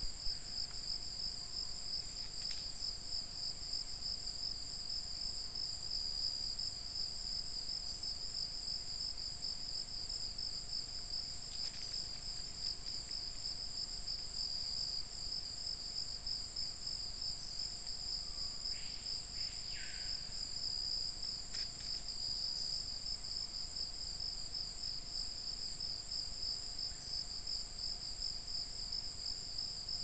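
Steady chorus of forest insects: a continuous high, pulsing trill with a second, higher band above it. A few brief downward-sweeping calls cut in, once about twelve seconds in and twice close together near the twenty-second mark.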